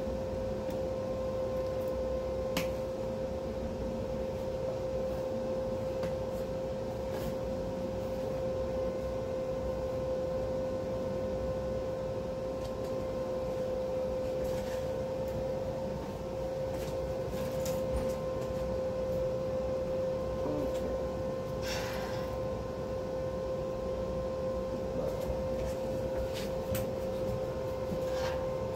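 Flux-core welder humming steadily with a constant whine, with a few light clicks.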